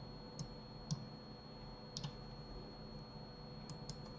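About five scattered sharp clicks of a computer mouse and keyboard, over faint room tone with a constant high-pitched tone.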